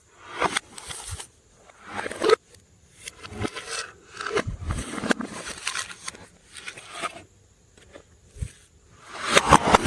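Slime being squished and kneaded by hand: irregular bursts of squelching with sharp little pops.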